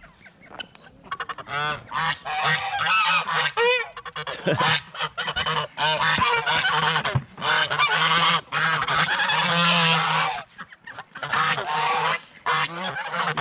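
A flock of domestic geese honking over and over, many calls overlapping, crowding around a feed bucket.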